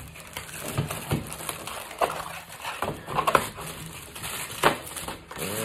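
Rustling and crinkling of a cardboard box insert and the figure's paper wrapping as an action figure is worked out of its packaging, with a few sharp clicks and knocks of handling.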